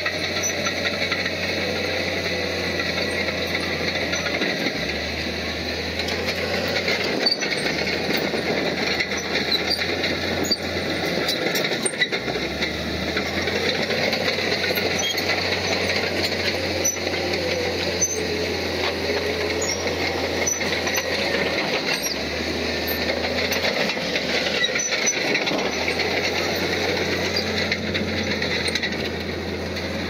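Crawler bulldozer working: its diesel engine runs steadily under a continuous metallic clatter of the tracks, with scattered sharp clicks.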